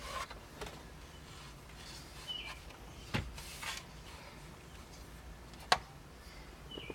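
Plastic interior trim and the push-to-start button being handled, giving a few scattered clicks and light rustling; the sharpest click comes late on.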